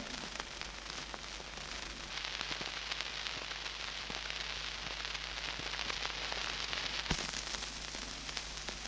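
Surface noise of a worn shellac 78 rpm record in a silent stretch of groove between recordings: steady hiss and crackle with scattered clicks, one sharper click about seven seconds in, over a low steady hum.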